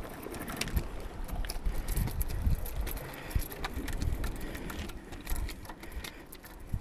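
Irregular clicks, taps and light metallic rattles as a freshly landed small amberjack and its metal jig, hooks and line are handled on the rocks, over a low rumble of wind and movement on the body-worn camera's microphone.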